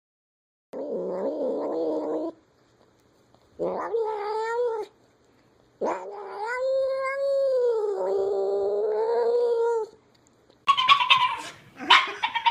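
A cat yowling in three long, drawn-out calls, the last about four seconds long. Near the end it gives way to a louder, rapidly pulsing call.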